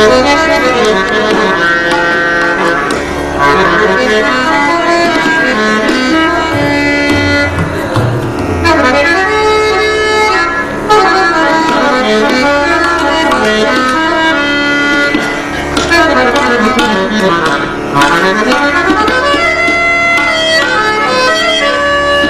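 Harmonium playing fast melodic runs up and down the scale, accompanied by tabla drumming with deep bass strokes.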